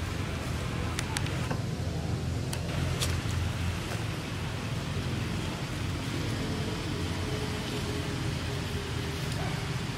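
Steady outdoor background noise: a low rumble under a hiss, with a few sharp clicks in the first three seconds.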